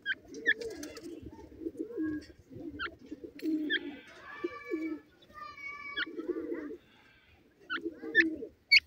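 Pigeons cooing over and over in low soft phrases, with short high bird chirps and a brief call cutting in between them.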